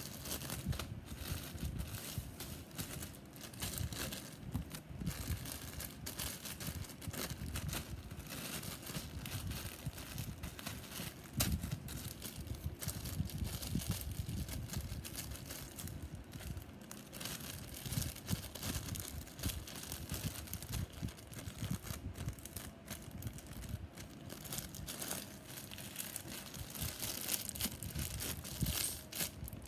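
Thin clear plastic bags crinkling and rustling without pause as soft squishy toys are handled and squeezed inside them, with some duller handling bumps.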